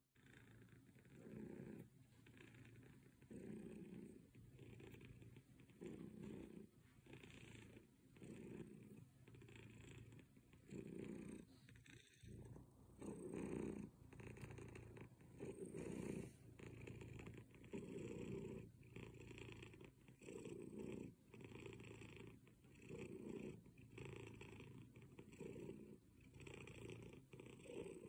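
Domestic cat purring softly while being stroked, the purr swelling and fading with each breath about every one and a half seconds, with a brief break about twelve seconds in.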